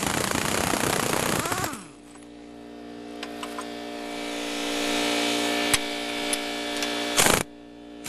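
Pneumatic impact wrench hammering at a spring compressor's threaded rod for about two seconds, then spinning freely with a steady whine that grows louder as the compressor nut runs back along the rod. There is a short burst of hammering near the end as the spring compressors are loosened off the coil spring.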